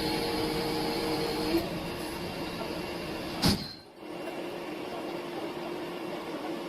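A heavy machine's engine running steadily, with a single sharp knock about three and a half seconds in.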